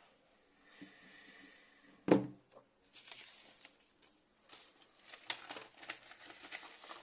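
A smartphone is set down on a wooden desk with one hard knock about two seconds in. Then come a few seconds of irregular crinkling and rustling from handling.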